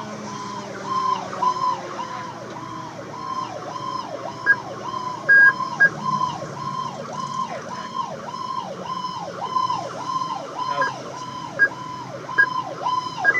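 Fire engine's electronic siren yelping from inside the cab, about two down-and-up sweeps a second, over the truck's running engine. A lower siren tone slowly winds down in the first few seconds, and a few short loud tones sound about five seconds in.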